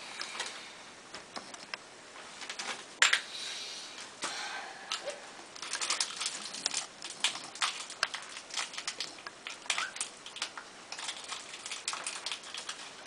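Plastic bag crinkling and crackling as it is handled, in irregular sharp crackles that grow busier about halfway through.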